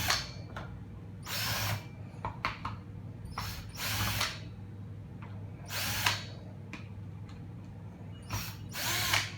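Hitachi DS10DL cordless driver drill running in repeated short bursts of about half a second to a second each, backing out the screws of a hammer drill's housing.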